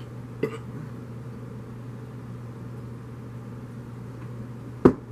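Quiet drinking and swallowing of soda from a glass mug over a steady low hum, with a small click about half a second in and a single loud, sharp knock near the end.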